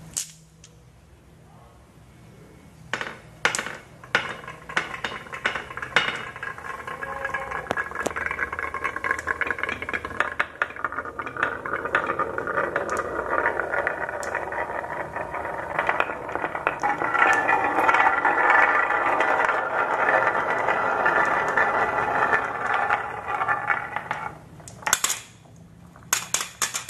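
Glass marbles rolling down the carved serpentine wooden channels of a marble run: a few sharp clicks at first, then a continuous rolling rattle with light clinks that swells toward the middle and fades. Near the end a few sharp clicks as marbles drop off a wooden track into a plastic toy trailer.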